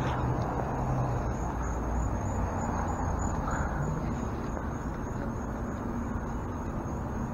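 Roadside outdoor ambience: a steady low rumble of road traffic with a continuous high-pitched insect trill over it.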